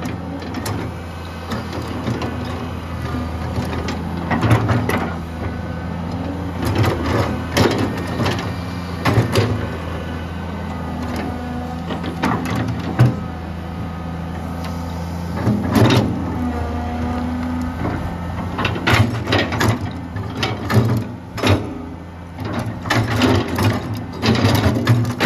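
Komatsu PC200-3 hydraulic excavator's diesel engine running steadily under load while the bucket digs out a tree stump, with repeated sharp knocks and cracks of the bucket striking soil and roots in clusters throughout.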